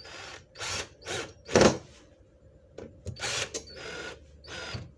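Cordless drill/driver running in about seven short bursts as it drives screws back into a molded-case circuit breaker's cover, the loudest burst about one and a half seconds in.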